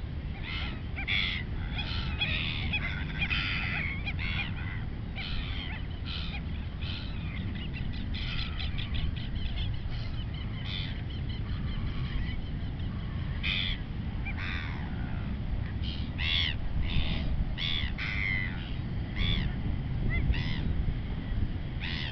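A flock of waterbirds calling over and over, many short separate calls overlapping, over a low steady rumble.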